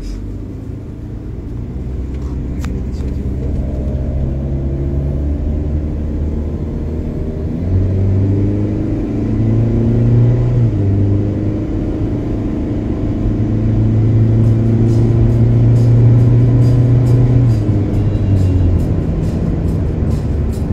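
Hyundai Stargazer's 1.5-litre four-cylinder petrol engine under hard acceleration from a standing start, heard inside the cabin, growing louder as the car gathers speed. Background music plays over it.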